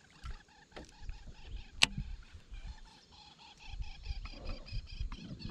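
Animal calling: a rapid, evenly repeated chirping several times a second, with one sharp click about two seconds in.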